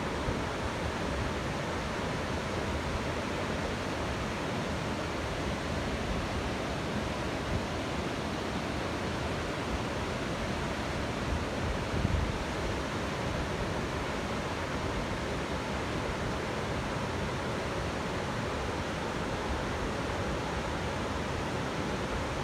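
Waterfall pouring: a steady, even rush of falling water, with a brief low thump about halfway through.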